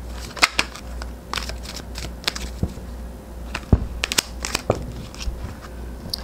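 Tarot cards being handled and drawn from the deck: an irregular run of papery snaps, clicks and rustles.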